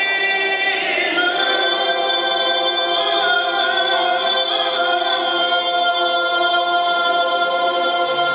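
Mixed choir singing, the voices moving through a phrase and then settling into a long held chord over the second half.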